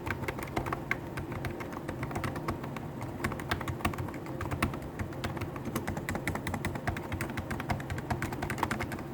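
Fast, continuous typing on a Hansung GK893B Sports electrostatic capacitive keyboard: a rapid, steady run of key strokes, many a second.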